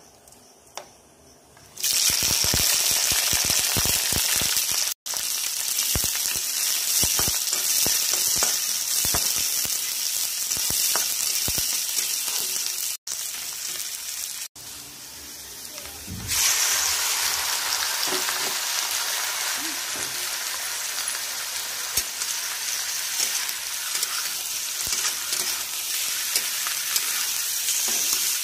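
Sliced onions and green chillies frying in hot oil in a wide pan: a loud sizzle with crackles starts suddenly about two seconds in and runs on, broken by a few brief gaps. A little past halfway it dies down for a moment, then surges again as raw mutton pieces fry with them.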